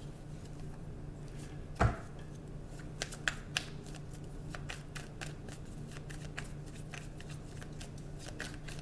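A deck of tarot cards being shuffled by hand, a string of quick papery ticks and slaps, with one louder thump just under two seconds in. A steady low hum runs underneath.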